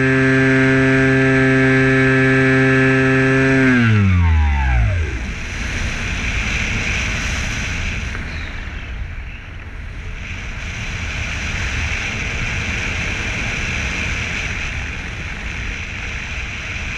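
Electric motor and propeller of an FPV model plane running steadily at high throttle, then winding down about four seconds in as the throttle is cut. After that comes the rush of wind over the airframe as it glides.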